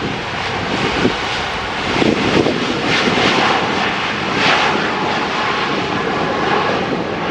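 Airliner engines running loud and steady: a dense rush with a faint high whine, swelling and easing a few times.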